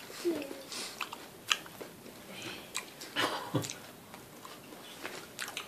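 A toddler eating grapes: scattered short smacks and clicks of chewing, the strongest about a second and a half and about three seconds in.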